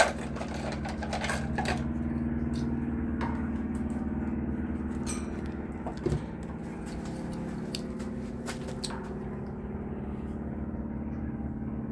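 A steady mechanical hum, with a few light knocks and clicks in the first few seconds and again about six seconds in.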